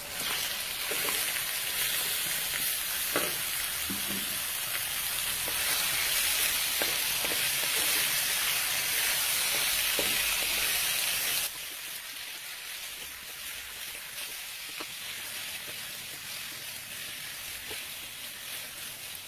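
Diced swordfish sizzling in hot oil in a frying pan, stirred with a wooden spatula that knocks now and then against the pan. The sizzle drops suddenly to a quieter level a little past halfway.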